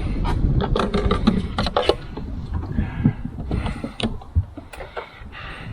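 Irregular clicks, knocks and clatter of hard objects being handled and moved about, as when rummaging through loose items for a missing vacuum cleaner part. The clicks come thickest in the first two seconds.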